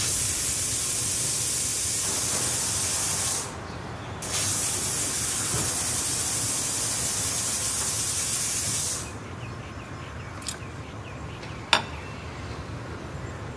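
Stovetop pressure cooker on a gas burner venting steam through its weight valve: a loud hiss for about three seconds, a short break, then a second hiss for about five seconds, the sign that the cooker is at full pressure. A sharp click comes near the end.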